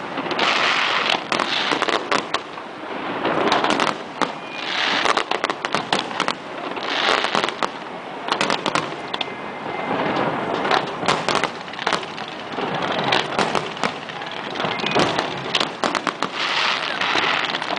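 Aerial fireworks display going off continuously: a dense run of sharp pops and crackles, with swells of crackling hiss every couple of seconds.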